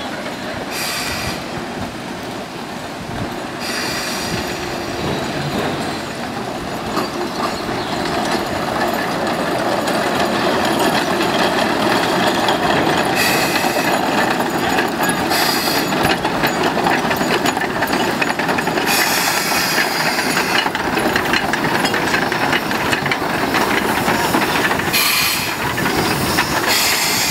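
Shay geared steam locomotive No. 11 moving past at close range, its engine and geared running gear working, with several short bursts of steam hiss. It grows louder over the first ten seconds as it nears.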